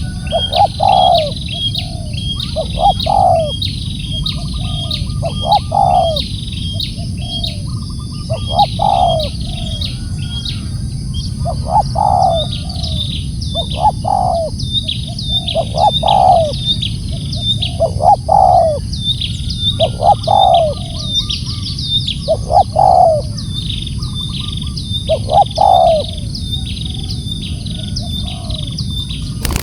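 Spotted dove cooing in short repeated phrases, one every two to three seconds, over constant high chirping of small birds and a steady high hiss.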